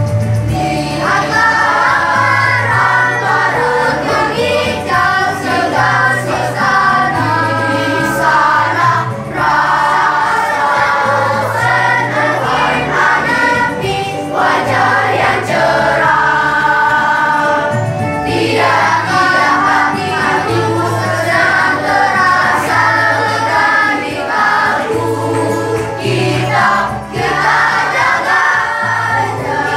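Children's choir of boys and girls singing a song together, with electronic keyboard accompaniment holding low bass notes beneath the voices.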